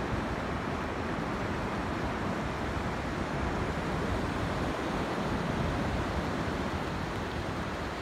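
North Sea surf breaking and washing on a sandy beach, a steady hiss of waves, with wind buffeting the microphone.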